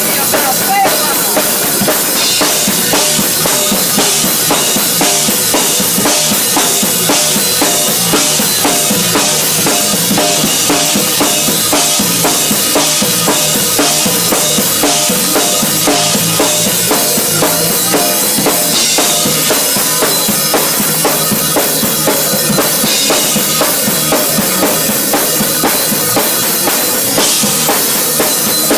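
A live gospel church band plays loudly: a drum kit (bass drum, snare and cymbals) drives a busy, steady beat over electric guitar and keyboard.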